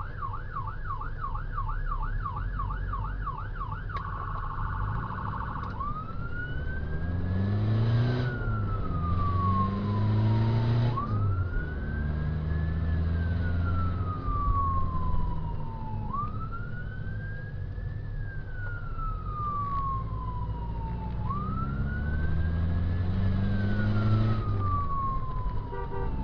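Rescue vehicle's electronic siren: a fast yelp that switches about four seconds in to a brief rapid warble, then to a slow wail rising and falling about every five seconds. Under it runs the low drone of the vehicle's engine and road noise.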